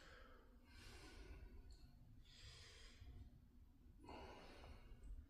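Faint breathing of a man doing dumbbell curls, about three slow breaths, each about a second long.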